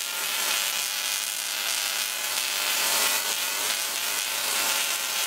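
High-voltage electric spark arcing across the spark gap of a pylon insulator string, giving a steady, harsh sizzling buzz.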